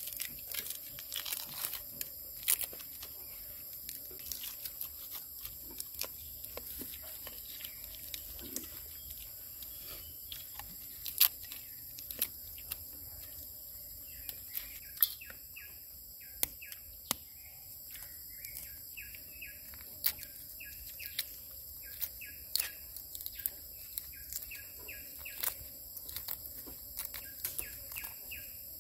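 Forest ambience: a steady high-pitched insect buzz with birds chirping, over scattered sharp clicks and crackles from food being handled and eaten. Near the end, the crackle of eggshell being peeled off a boiled egg.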